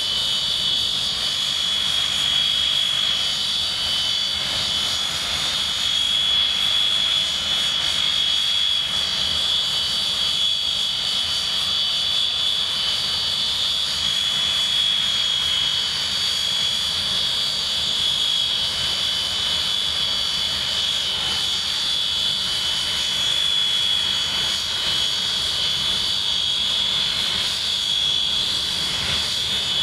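English Electric Canberra's Rolls-Royce Avon turbojet engines idling on the ground, a steady loud jet noise with a high, even whine.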